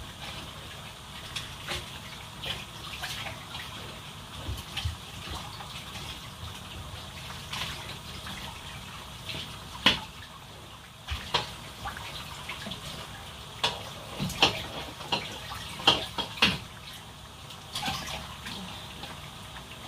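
Kitchen tap running with scattered clinks and knocks of dishes and utensils being handled, the loudest knocks coming in the second half.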